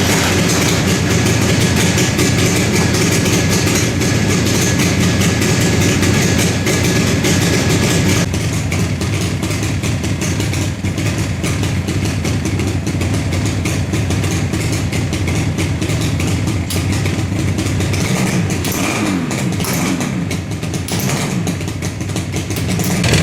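1977 Yamaha RD400 two-stroke twin running through its stock exhaust with slip-in baffles, a fast crackling engine note. It drops in level about eight seconds in, and its pitch rises and falls a few times near the end.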